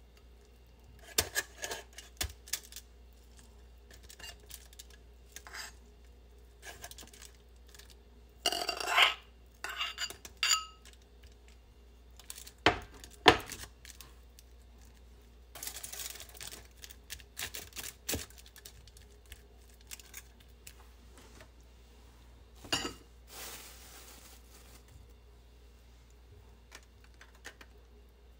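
A metal spoon scrapes and clinks against a ceramic bowl and scoops sticky fried rice in scattered clicks and scrapes. Aluminium foil crinkles now and then as the rice is pressed into a foil-lined dish.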